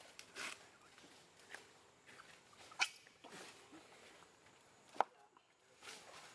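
Faint scuffling and a few short sharp sounds from long-tailed macaques tussling on stone ground, the loudest about three seconds in and a sharp click at about five seconds.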